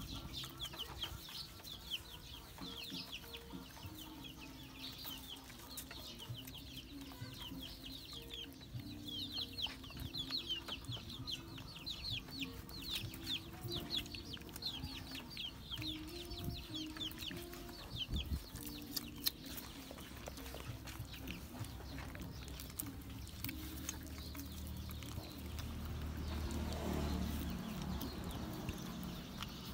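Chickens clucking in low held notes, with quick runs of short, high peeping chirps through the first half.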